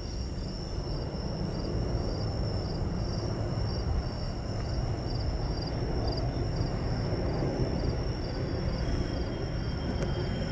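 Night insects chirping: a steady high trill with a second chirp pulsing about twice a second, over a constant low rumble of outdoor noise.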